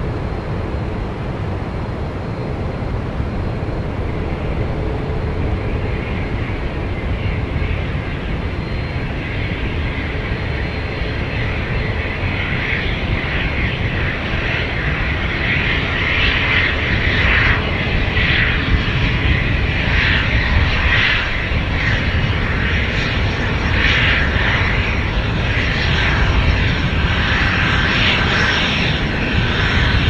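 Jet engine noise from a light business jet's twin rear-mounted turbofans during its landing rollout: a steady rushing sound that grows louder over the second half.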